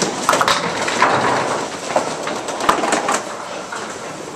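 Candlepin bowling alley din: balls rolling on the wooden lanes, with scattered sharp knocks and clacks of balls and pins. It eases off somewhat toward the end.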